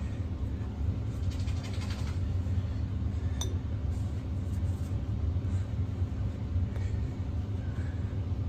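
A cloth towel rubbing a glazed ceramic bowl dry, with a light click about three and a half seconds in, over a steady low mechanical hum.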